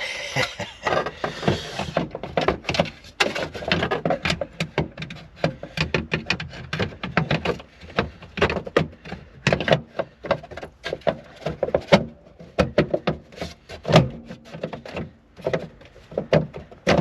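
Irregular clicks, knocks and rubbing as a Mercedes W201 tail light unit with its rubber seal is handled and pressed into place in the car's body, many sharp knocks close together.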